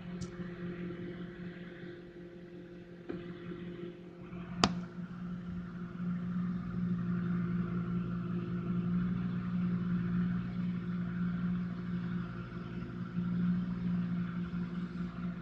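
Microwave oven running with a steady hum. A single sharp click sounds about four and a half seconds in.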